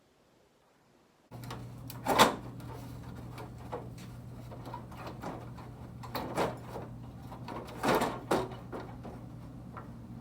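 After about a second of near silence, knocks and clatter from parts and tools being handled during work on a pickup's front-end grille, over a steady low hum. The loudest knocks come about two seconds in and again near eight seconds.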